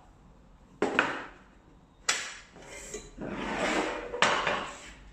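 The upper casing of a UC501 IP-PBX being pulled off its chassis by hand: a couple of sharp knocks about a second in, another at two seconds, a scraping slide, then one more knock near the end.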